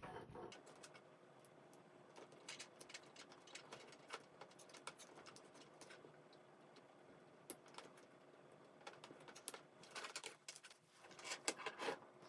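Faint, scattered small clicks and ticks of electrical wires being handled and joined in a junction box, with a few closer-spaced clicks near the end.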